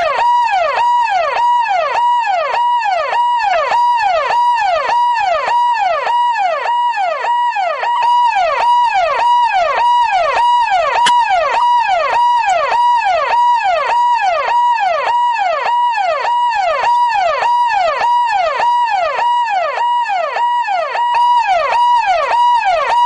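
Police siren in a fast, even up-and-down sweep, about one and a half cycles a second, each cycle rising to a brief held tone and dropping again.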